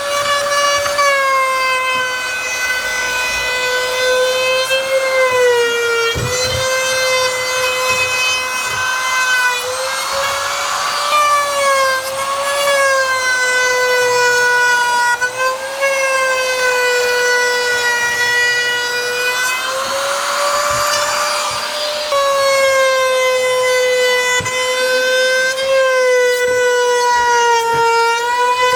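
Bosch wood router running at speed: a steady high whine whose pitch sags slightly and recovers every few seconds as the bit takes load, with hissy cutting noise swelling about ten and twenty seconds in as it cuts into the wood edge.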